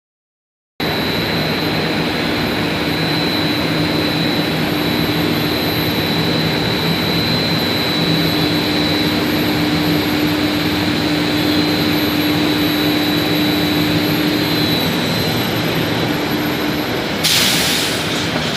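Induction heating machine running on a rebar heat-treatment line: a steady mechanical noise with a high, constant whine and a lower hum, starting abruptly about a second in. Near the end a louder hiss joins.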